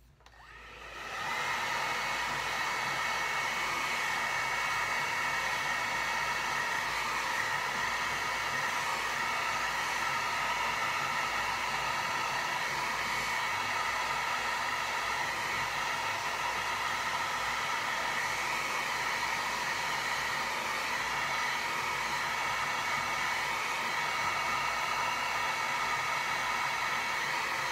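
Handheld hair dryer running steadily to dry wet acrylic paint, a rush of air with a steady high whine over it. It winds up over the first second or so and shuts off at the end.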